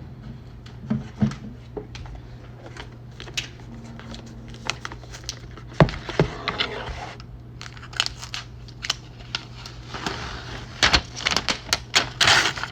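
Packaging of an iPad being handled and opened: crinkling and tearing of wrapping, with scattered taps and clicks, and a longer stretch of rustling near the end. A steady low hum sits underneath.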